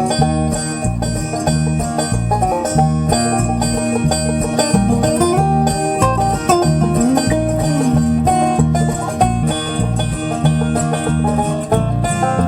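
Bluegrass-style background music with a banjo and guitar over a steady bass beat.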